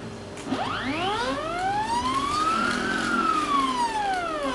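Stepper motor of a DIY camera slider driving the camera carriage on a fast run along its rails. It makes a whine that starts about half a second in, rises in pitch as the carriage speeds up, then falls as it slows toward the end of the travel. At this speed the slider starts to vibrate.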